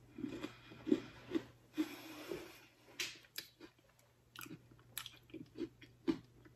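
A person chewing a bite of a crunchy chocolate Oreo sandwich cookie with the mouth close to the microphone, the chewing busiest in the first couple of seconds, then sparser.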